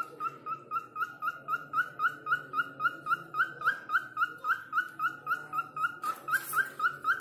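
Cockatiel chirping in a rapid, even run of short rising whistled notes, about three or four a second, starting suddenly.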